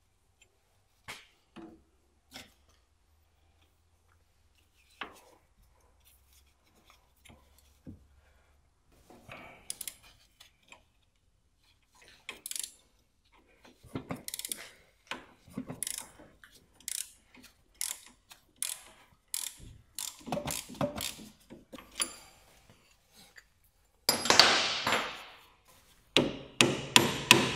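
Ratchet clicking in quick runs as the stabilizer link nut is spun off its stud with a spanner, the stud held by a Torx bit. Near the end come several loud metal hammer blows on the link stud to drive it out of the strut bracket.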